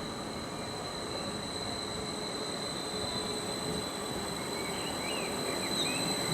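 A train running through the station, a steady rumble growing slowly louder, with a high steady tone over it and a few brief squeals near the end.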